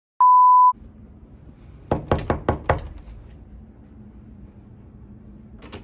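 A steady test-tone beep, the loudest sound, lasts about half a second. About two seconds in, a door is knocked on five times in quick succession.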